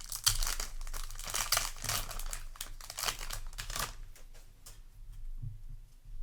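Foil trading-card booster pack wrapper crinkling and tearing as it is handled and opened, a busy rustle that dies down to light handling after about four seconds.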